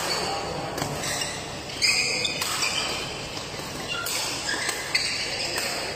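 Badminton rally in a large hall: sharp cracks of rackets striking the shuttlecock, three in about five seconds, with short high squeaks of court shoes on the mat in between.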